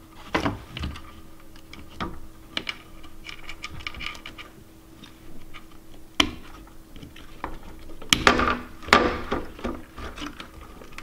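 Small plastic clicks and rustling as fingers pull little wire connectors off the circuit board inside an opened DJI Phantom 3 Standard remote controller, with a burst of louder handling of the plastic case near the end.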